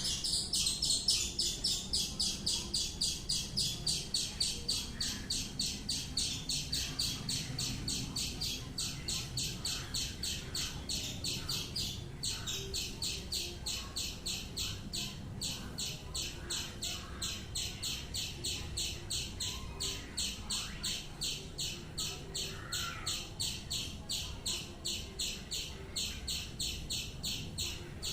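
A small bird chirping over and over in a steady, fast series, about two to three high chirps a second.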